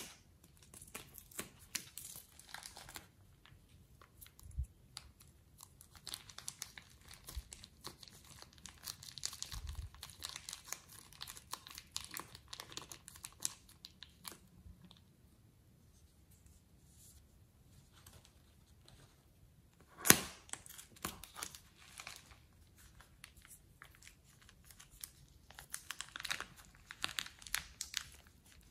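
Plastic piping bags crinkling and rustling as they are squeezed and emptied, with foam beads crackling out of them, in stretches with quieter gaps. A sharp scissor snip at the very start and another sharp snap about twenty seconds in are the loudest sounds.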